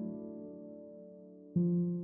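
Soft electric piano background music: a held chord fades away, then a new note is struck about one and a half seconds in.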